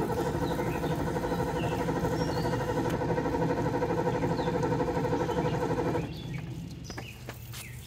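Starter cranking the boat's 351 Windsor Ford small-block V8 for about six seconds without it catching, then cutting off suddenly. The engine has been sitting, and its mechanical fuel pump has not yet drawn fuel up. Birds chirp faintly in the background.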